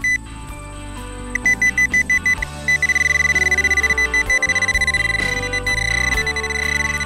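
Music with a stepping melody, over a high electronic beep that pulses rapidly for about a second and then holds as a steady tone.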